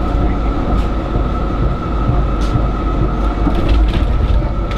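Electric tram running along street track, heard from inside the cab: a steady rumble of wheels on rails with a constant whine above it.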